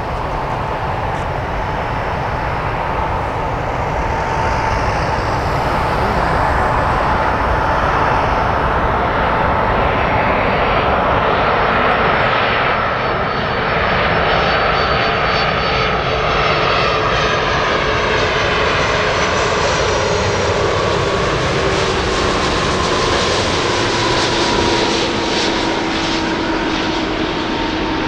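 Airbus A330-200 airliner on final approach, its two Rolls-Royce Trent 700 turbofans running at approach power: a loud, steady jet noise with a few thin tones that slowly drop in pitch as the aircraft passes.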